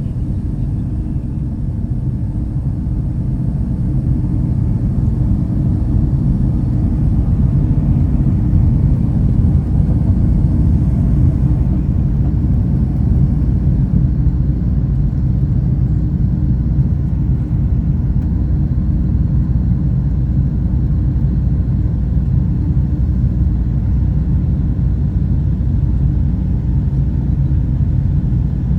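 Boeing 757 jet engines at takeoff power, a steady low rumble that grows louder over the first several seconds and then holds.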